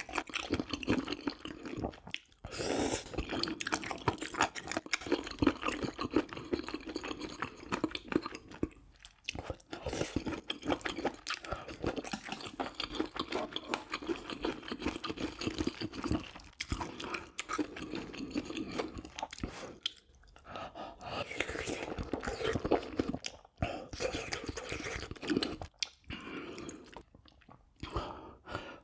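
Close-miked eating: a person chewing food steadily, with wet mouth sounds and some crunches, broken by a few brief pauses.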